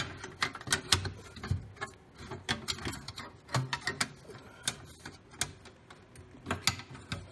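A string of irregular light clicks and taps of sheet-metal panels as the cover of a fireplace blower fan-kit housing is handled and fitted back in place by hand.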